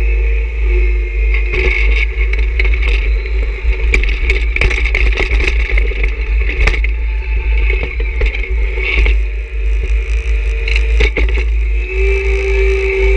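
John Deere 1026R subcompact tractor's diesel engine running with a steady high whine, while the steel snow pusher on its loader scrapes and crunches through snow, giving many sharp scrapes and cracks from about a second and a half in until near the end.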